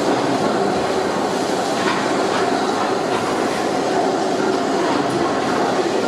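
Fowler steam ploughing engine running, a steady mechanical rumble and clatter with faint irregular knocks.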